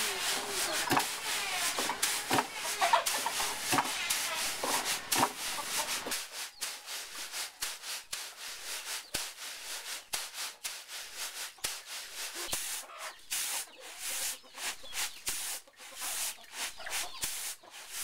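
Hulled rice being shaken and worked around a woven bamboo winnowing tray: a long run of quick rubbing, scraping strokes as the grains slide across the weave. For the first six seconds there is a busier stretch of wooden knocks and rustling.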